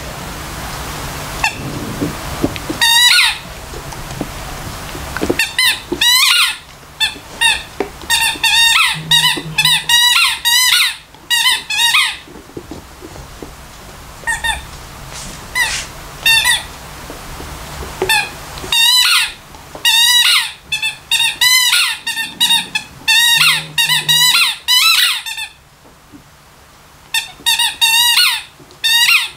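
A dog chewing a rubber squeaky toy, setting off many short, high squeaks that bend up and down in pitch. They come in quick clusters with pauses between, and a stretch of only scattered squeaks about halfway through.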